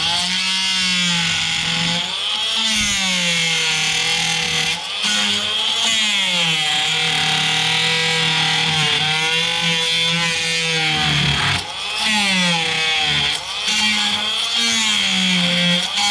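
Oscillating multi-tool on its lowest speed setting, its blade working into a cedar bowl blank; the motor hum wavers up and down in pitch as the blade is pressed into the wood, over a steady high buzz, with brief dips about five seconds in and near the end.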